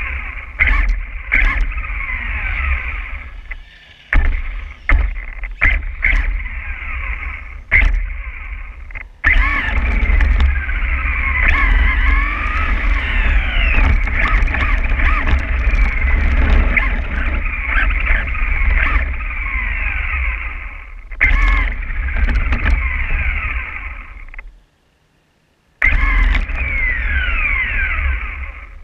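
Onboard sound of a Losi XXX-SCT short-course RC truck driving on wet, slushy pavement: the electric motor and gears whine, rising and falling with the throttle, over a low rumble of tyres and body noise, with scattered clicks and knocks from bumps. The sound cuts out for about a second near the end, then resumes.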